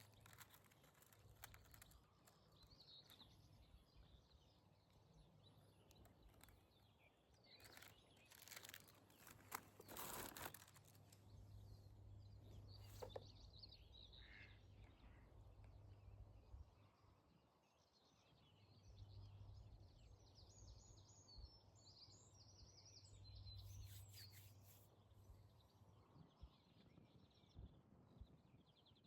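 Near silence with faint, scattered bird chirps, a few soft clicks and a low hum that comes and goes.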